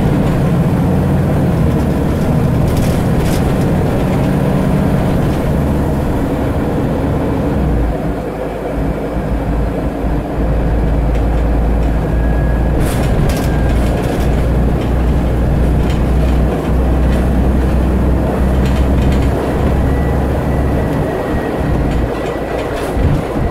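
Scania N94UD double-decker bus under way, heard from inside the saloon: the diesel engine and road noise make a steady drone. The low rumble gets deeper and heavier about a third of the way in and eases near the end, with a few brief rattles from the bodywork.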